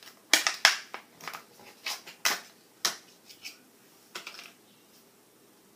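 Thin plastic wrapping crinkling as it is pulled off a roll of washi tape: a quick run of sharp crackles for about three seconds, with one more short rustle about four seconds in.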